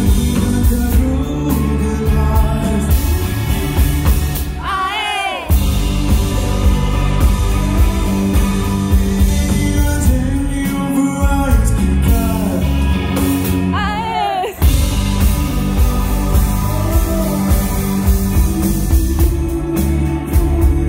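A rock band playing live with a sung lead vocal: electric guitars, bass guitar, drum kit and keyboard. Twice, about five seconds in and again about fourteen seconds in, the bass and drums drop out for a moment under a wavering pitch that slides up and down before the full band comes back in.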